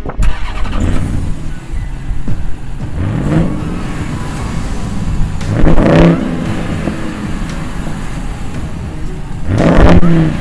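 Ram 1500 TRX's supercharged V8 free-revved with the hood open: a steady idle broken by three blips of the throttle, each rising and falling in pitch, about three seconds apart, the last two the loudest.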